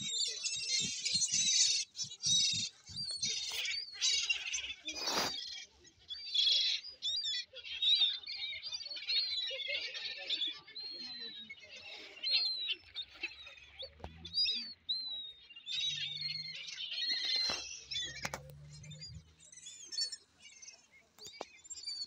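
A flock of seagulls calling over one another: many high, sharp calls and short up-and-down sweeps overlapping throughout. There is a single short thump about five seconds in.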